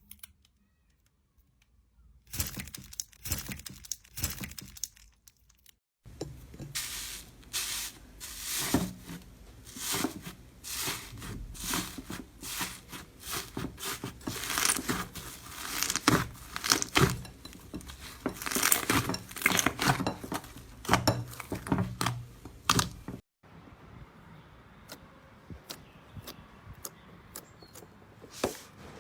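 Slime being squeezed and pressed by hand: dense sharp crackling and popping clicks, in several short clips. The crackling starts about two seconds in, and only scattered clicks are left in a quieter stretch near the end.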